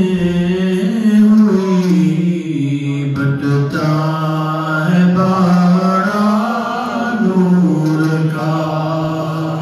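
A man's unaccompanied voice chanting salawat, the devotional blessing on the Prophet, in long held notes that glide slowly up and down, amplified through a microphone.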